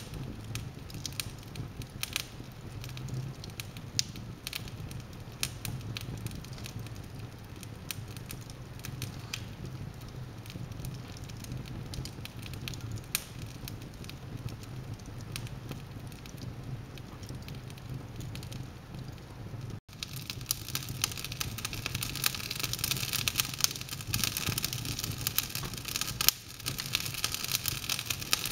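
Wood fire burning in an open fireplace, crackling with frequent sharp pops over a low steady hum. About two-thirds of the way in the sound breaks off for an instant and comes back brighter and hissier.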